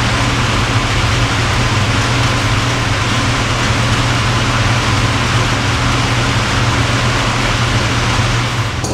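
Steady mechanical drone, a low hum under an even hiss, unchanging throughout.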